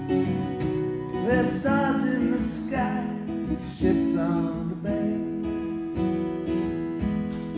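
Acoustic guitar strummed in a steady rhythm, with a man's voice singing a phrase over it from about a second in until about halfway through.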